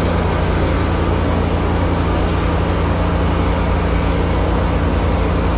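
High-pressure drain-jetting machine running steadily, with a loud, even drone and a constant low hum.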